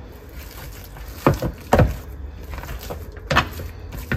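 Wet hands folding and turning a high-hydration ciabatta dough in a bowl: about four brief soft thuds and slaps, three close together early and one more near the end, over a low steady hum.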